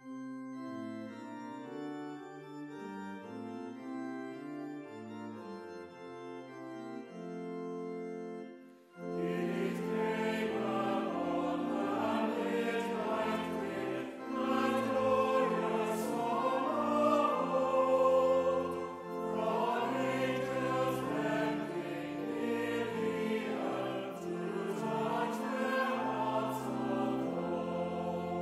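Church organ playing an introduction in slow, held chords; about nine seconds in, a choir comes in singing a carol with the organ, noticeably louder and fuller.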